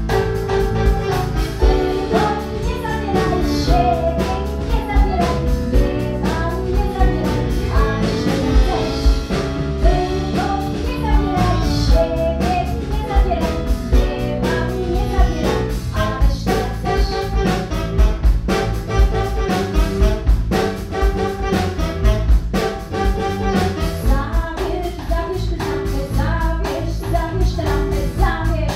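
A woman singing a Polish song through a microphone, backed by a band with guitar and keyboard over a steady beat.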